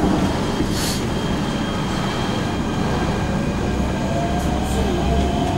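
MTR K-Train pulling away from a station, heard from inside the car: a steady rumble, a brief hiss about a second in, and a faint motor whine that slowly rises in pitch as the train gathers speed.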